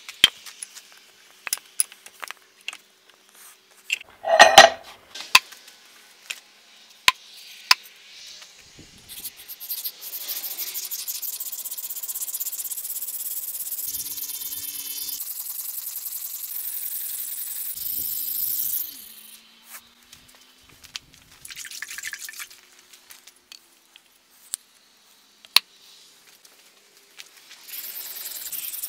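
Seax blade being sharpened by hand on a wet whetstone: a long run of quick scraping strokes, then shorter bursts of strokes near the end. Before that come scattered light metal clicks and one loud ringing clank about four seconds in.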